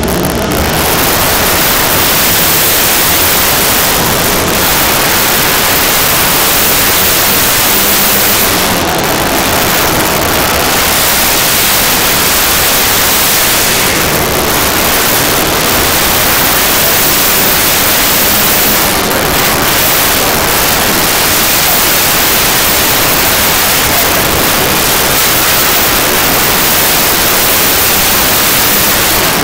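500cc four-stroke single-cylinder speedway motorcycles racing at full throttle. The sound is a loud, steady, hiss-like din that overloads the camera microphone, so no separate engine notes stand out.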